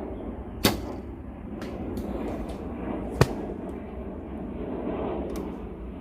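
Two sharp snaps about two and a half seconds apart, typical of arrows being shot from a bow, over a steady rumbling noise.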